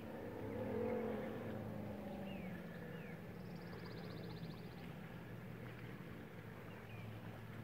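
Faint outdoor ambience: a steady low hum under scattered bird chirps and a short rapid trill. About a second in, a brief rising-and-falling pitched sound is the loudest thing.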